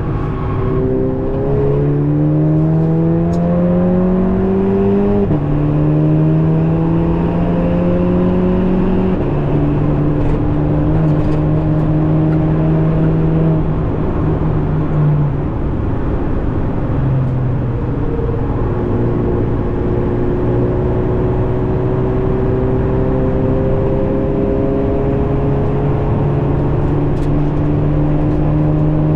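Cabin sound of a tuned VW Golf 7.5 GTI Performance's turbocharged 2.0-litre four-cylinder pulling under acceleration, its note rising and then dropping sharply at a quick DSG upshift about five seconds in. It then runs at a steadier pitch and climbs slowly again near the end, over a haze of road and wind noise.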